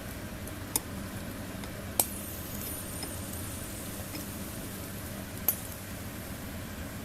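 Three sharp clinks of tableware, spaced over several seconds, over a steady low hiss that fits the small solid-fuel fire burning under the grill net.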